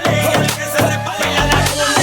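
Background hip-hop music: a break in the beat, with melodic instrument notes and no heavy kick drum, which returns just after.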